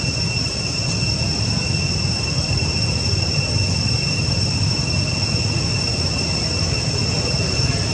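A steady, unbroken high-pitched insect drone with a low rumble underneath.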